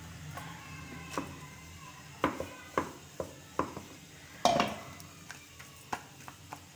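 Scattered sharp taps and knocks as paratha dough is patted and handled on a flour-dusted wooden rolling board, the loudest about four and a half seconds in.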